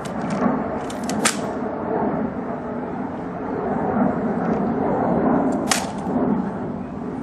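Sharp slaps and clicks of a rifle being handled during a ceremonial rifle inspection: a few crisp cracks, the loudest about a second in and again near six seconds, over a steady low background rumble.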